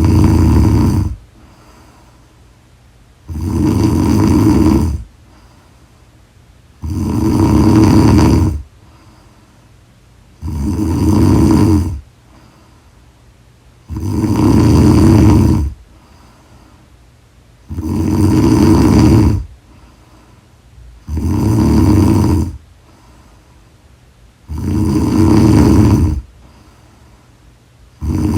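A woman snoring loudly in a steady rhythm: a long rasping snore about every three and a half seconds, with quiet breathing in between.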